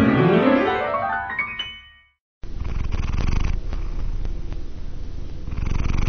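A piano note sweeping quickly up the keyboard in a rising run that dies away, then after a brief silence a domestic cat purring steadily.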